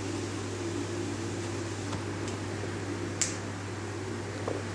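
Steady low machine hum in a small room, with a single sharp click about three seconds in.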